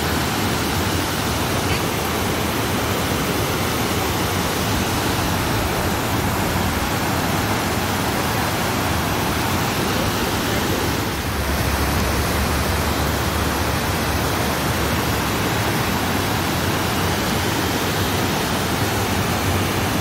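Steady rush of whitewater tumbling over a shallow, rocky river cascade close by.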